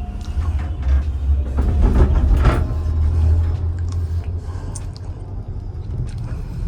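Gondola cabin moving along its cable, heard from inside the cabin: a steady low rumble with scattered knocks and clicks, loudest in the first few seconds.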